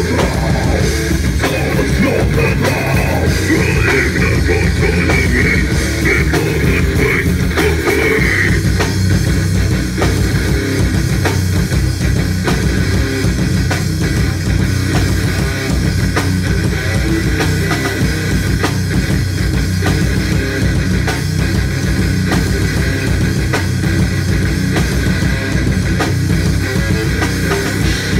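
Heavy rock band playing live: distorted electric guitars and a drum kit, loud and dense without a break, picked up on a phone's microphone.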